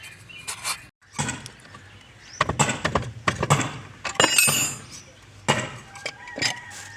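A series of irregular, sharp metallic knocks and clinks of tools and parts against the casing of a water pump motor while it is reassembled after a bearing change.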